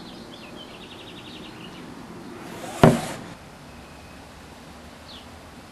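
A single sharp knock about three seconds in, after a short run of faint rapid high ticking.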